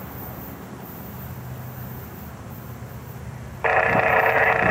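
Freight locomotive's air horn sounding a long blast that cuts in suddenly near the end: a steady chord of several tones at once.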